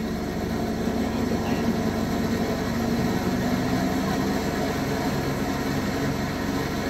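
Four-engined Lancaster bomber's piston engines running at takeoff power as it rolls down the runway and lifts off, a steady drone from a film soundtrack heard through theatre speakers.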